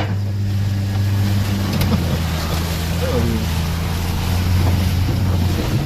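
Subaru Sambar mini truck's engine running steadily under load, a constant low drone heard from inside the cab, with a hiss of tyre and wind noise over it.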